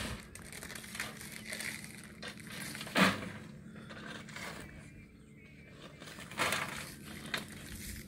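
Irregular crunching and scraping on dry, gravelly soil, with sharp louder crunches about three seconds in and again near six and a half seconds, over a faint low steady hum.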